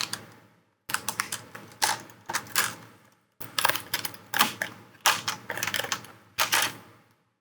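Plastic screen bezel of an HP Fortis 14 G11 Chromebook being pried off with a plastic spudger. It gives a run of irregular sharp clicks and snaps in clusters as the bezel pops loose from its adhesive.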